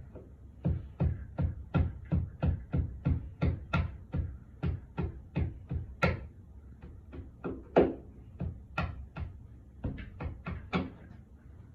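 A wood chisel being struck in quick, regular knocks, about three a second, cutting off the excess of glued wooden dowel plugs in a door's stripped hinge screw holes.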